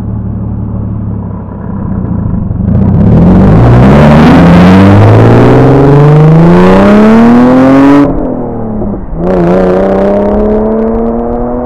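Lexus IS300's 2JZ straight-six exhaust under hard acceleration as the car pulls away. The engine runs steadily at first, then the revs climb loudly for about five seconds. They drop sharply at a gear change and climb again in the next gear, a little quieter as the car draws away.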